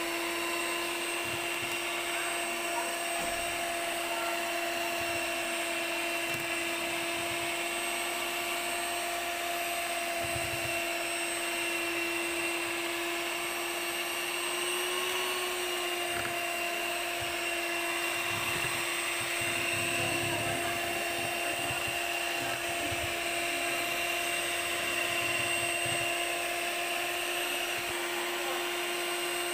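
Electric hand mixer running at a steady speed, a constant motor whine with its beaters churning through pancake batter in a plastic bowl.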